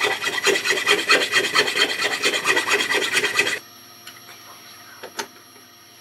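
Fast, rasping scrape of something rubbed back and forth against plywood at the edge of a milled cutout, at about ten strokes a second, stopping abruptly a little past halfway. A few light clicks follow.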